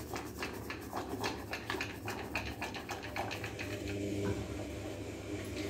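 Wooden dal masher churning boiled lentils inside an aluminium pressure cooker, making a fast, irregular run of light knocks and scrapes against the pot.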